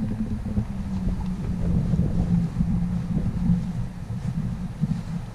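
Wind buffeting the microphone, a heavy, uneven low rumble, with a steady low hum underneath.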